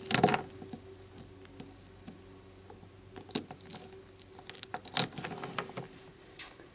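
Handling noise from a polymer clay mirror charm on a metal key ring: scattered clicks and light jingles as the ring and charm knock together and against the table, loudest right at the start and again about five seconds in.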